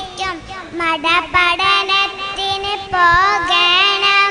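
A young girl singing solo into a microphone, unaccompanied, holding long notes with a wavering pitch between short breaths. The loudest, highest phrase comes about three seconds in.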